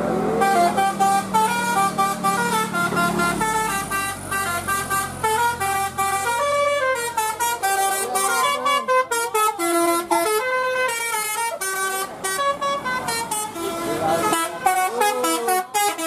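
A tour bus's Basuri telolet horn playing a long, quick melody of short stepped notes. The bus's engine hums low underneath for the first few seconds.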